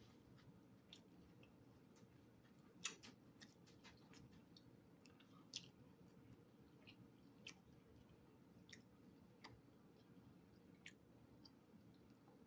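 Faint chewing with scattered soft mouth clicks, about a dozen spread unevenly, as food is eaten close to the microphone.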